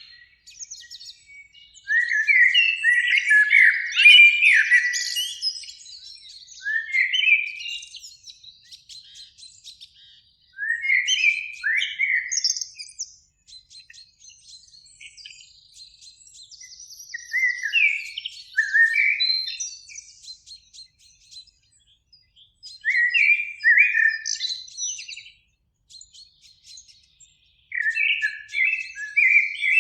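Common blackbird singing in short, separate phrases about every five or six seconds, each a few fluted notes running into a higher twitter, with faint high chirps in between.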